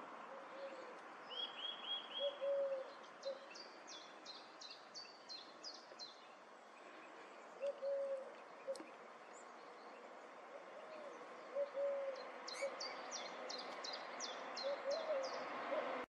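Song thrush singing: short phrases with each note repeated several times in quick succession, including a run of high sharp notes a few seconds in and again near the end. Low cooing notes from another bird sound now and then in the background, and the sound cuts off suddenly at the end.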